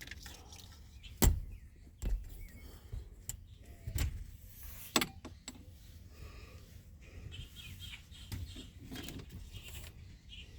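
A few separate sharp knocks and clunks spread over several seconds, the loudest about a second in and near the middle, with faint bird chirps in the quiet between them.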